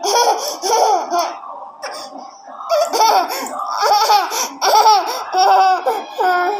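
A one-year-old boy laughing in repeated bursts of high-pitched giggles, with a short pause about two seconds in.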